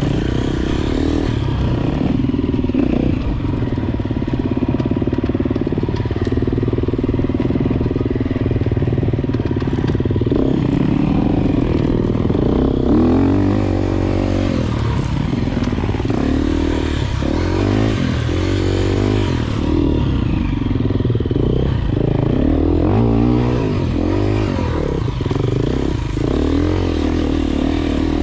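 Enduro dirt bike engine under way on a trail, its revs rising and falling over and over as the rider accelerates and backs off, with clatter from the bike over rough ground.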